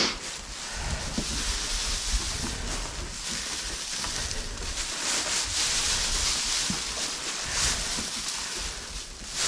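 Dry bedding straw rustling as it is pulled apart and shaken out by hand, a continuous rustle that swells and eases with each toss.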